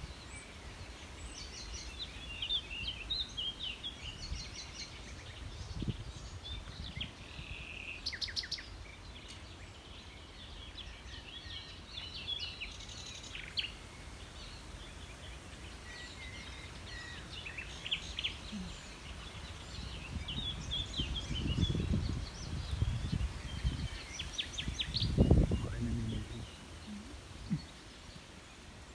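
Several songbirds singing and chirping, with quick trills and short calls overlapping throughout. Low rumbling bumps come in now and then, loudest about three-quarters of the way through.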